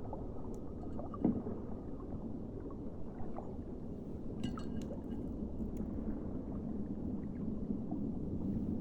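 Hands squishing and stirring a mass of wet water beads: a steady squelching, with a few small clicks about a second in and again around the middle.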